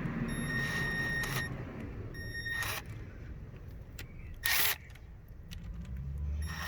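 Hand-tool work on a hose clamp: two short metallic squeaks, then sharp clicks, the loudest about four and a half seconds in.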